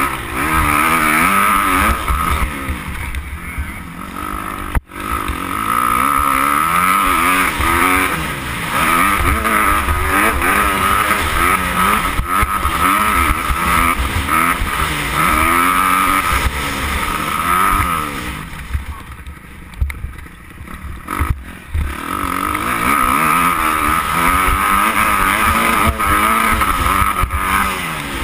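Motocross bike engine revving up and down as the throttle opens and closes, pitch rising and falling over and over. It cuts out for an instant about five seconds in and runs quieter for a few seconds about two-thirds of the way through.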